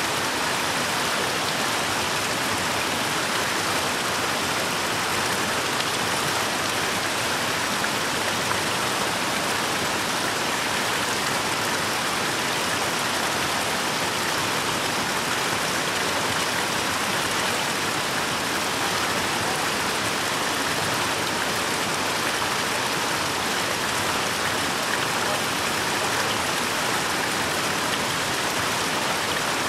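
Water from a spring fountain running steadily, an even splashing rush with no breaks.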